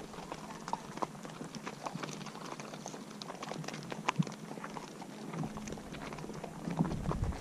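Horses' hooves clip-clopping in an uneven run of steps.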